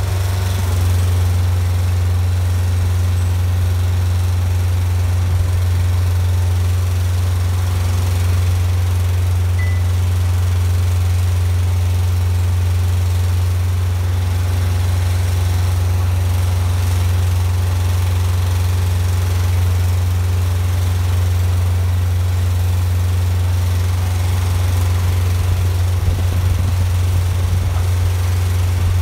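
Side lifter's engine running steadily at a constant speed, powering the hydraulic lifting arms as they move.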